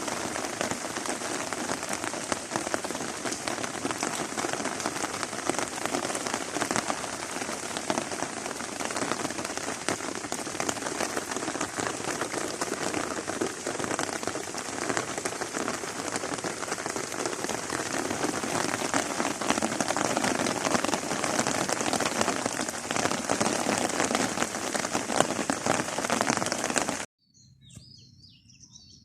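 Steady heavy rain falling, a dense patter of drops that cuts off suddenly about 27 seconds in. Faint bird chirps follow near the end.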